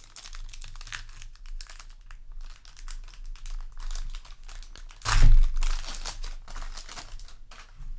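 Trading-card booster pack wrapper crinkling as it is handled and torn open, a dense run of small crackles, with one louder rustle and thump about five seconds in.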